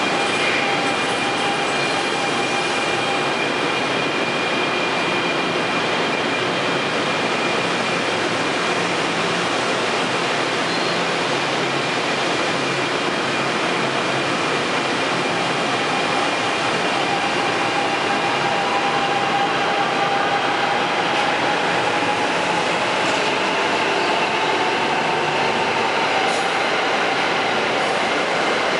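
NJ Transit Arrow III electric multiple-unit train rolling out of the station close by: a steady, loud rumble of steel wheels on rail, with thin high whines over it. From about halfway through, a tone slowly rises in pitch as the train gathers speed.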